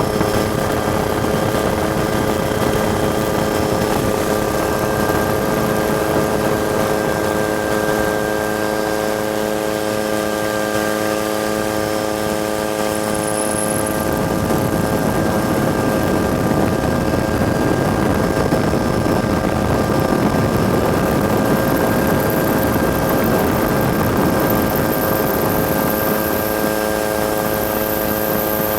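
Helicopter turbine and rotor running steadily: a constant hum of several even tones over a rushing noise. About halfway through the rushing noise grows louder, easing again near the end.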